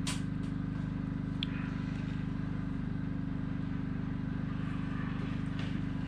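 A small engine running steadily at an even pitch, with a sharp click at the start and a light tap about a second and a half in.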